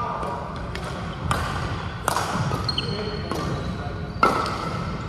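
Badminton rackets hitting a shuttlecock: several sharp smacks that echo in the hall, the loudest a little over four seconds in. Between them come short, high squeaks of sports shoes on the court floor.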